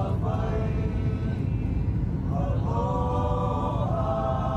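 Voices chanting long held notes, in two stretches with a short pause between, over the steady low drone of an airliner cabin in flight.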